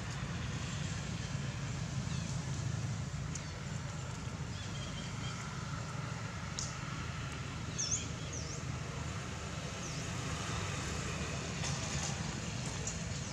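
Outdoor ambience: a steady low rumble, with two short high chirps about eight seconds in.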